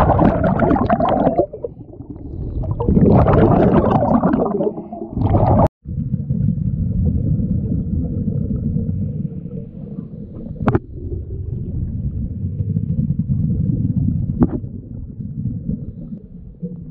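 Scuba regulator exhaust bubbles gurgling past an underwater camera in two loud bursts. After a sudden cut comes a steady, muffled underwater rumble with a faint hum, broken by two sharp clicks.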